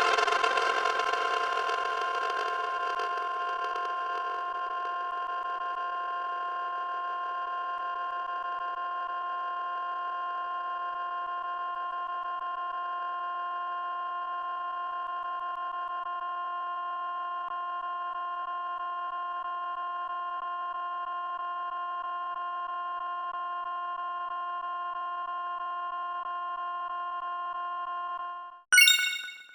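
A held electronic tone, one steady pitch with its overtones, eases slightly over the first few seconds and then stays level for nearly half a minute before cutting off suddenly. A short, bright, higher sound effect follows just before the end.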